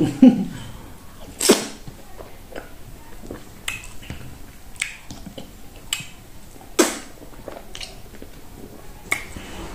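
Mouth sounds of eating fufu and okra soup by hand: a run of short, sharp wet smacks and slurps, roughly one a second, with quieter chewing between them.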